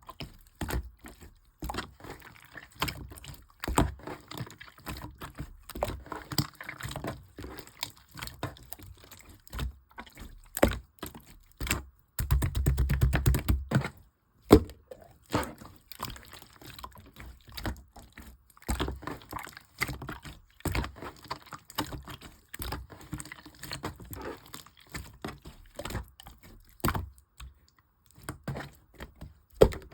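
Clear pink slime being squished and pressed: an irregular stream of sticky clicks and small pops, with a denser, louder run of rapid squelching about twelve seconds in that lasts about two seconds.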